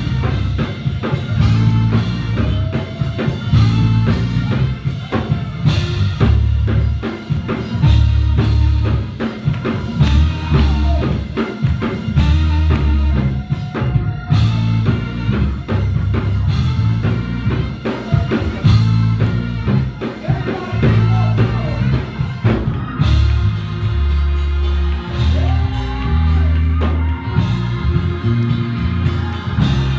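Church worship music: a band with drum kit, bass and guitar playing a steady beat under a singing voice.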